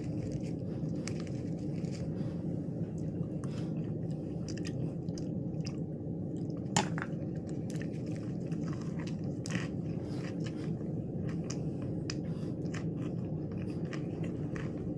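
Close-miked biting and chewing of crunchy lettuce wraps with raw cucumber and pepper, many short crisp crunches over a steady low hum. One crunch about seven seconds in is much louder than the rest.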